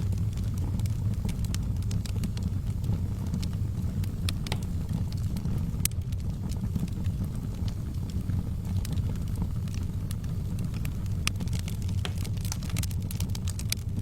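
Wood fire burning in a fireplace: a steady low rumble with scattered sharp crackles and pops, coming thicker near the end.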